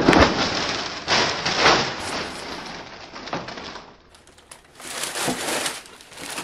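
Cardboard cereal box being handled and its plastic inner bag rustling and crinkling as it is pulled out, loudest at the start, dying down after about four seconds, then a short rustle again about a second later.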